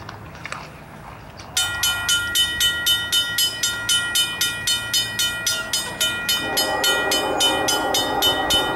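Safetran mechanical crossing bell starts ringing about a second and a half in, about four strikes a second, as the crossing activates. From about six seconds in, an approaching freight locomotive's horn sounds a steady chord under the bell.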